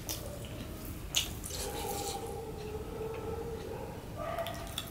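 Wet mouth clicks and smacks of a person eating rice mixed by hand with mashed potato and bitter gourd bhorta, with a sharp click about a second in. A faint steady hum runs through the middle.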